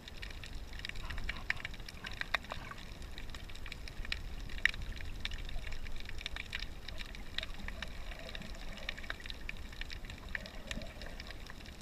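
Underwater sound picked up through a GoPro's waterproof housing: a steady low rumble of water movement with a dense scatter of small crackling clicks throughout.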